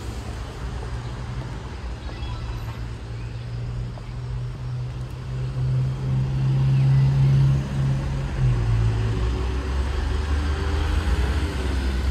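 Road traffic: car engines running close by as vehicles pass, with a low engine drone that grows louder past the middle and drops lower in pitch about eight seconds in.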